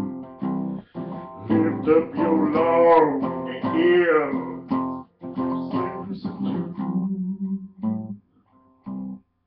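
Acoustic guitar strummed in a steady rhythm. A man's voice sings a long wavering line without clear words from about a second and a half to four and a half seconds in.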